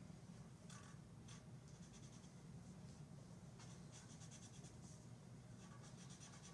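Faint scratching of a drawing tool on paper, in several short strokes, over a low steady room hum.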